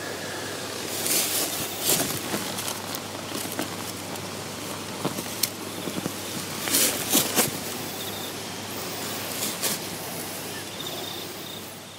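Steady outdoor background hiss with scattered rustles and knocks from movement through grass and handling of the camera close to the ground.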